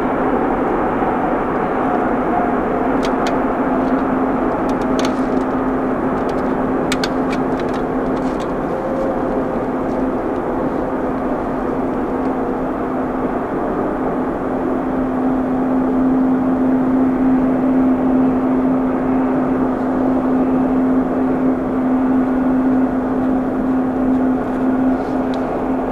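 Rolls-Royce Trent XWB turbofan engines of an Airbus A350-900 running steadily: a constant jet rush with a steady hum underneath. A few faint clicks in the first ten seconds.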